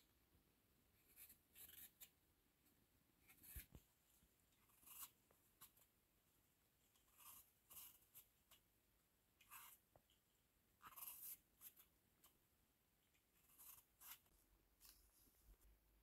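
Faint, short scrapes of a hand-held vegetable peeler stripping the skin off yellow apples, one stroke every second or two.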